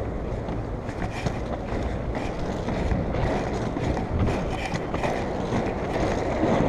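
Inline skate wheels rolling over rough pavement: a steady rumble with irregular clicks as the wheels cross cracks and joints.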